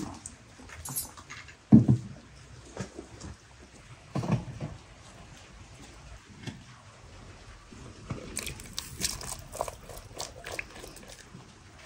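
Two dull thuds, the first the louder, about two and four seconds in. Then, from about eight seconds in, a run of light clicks and splashes as peeled chestnuts are tipped from a glass bowl into a pot of simmering broth.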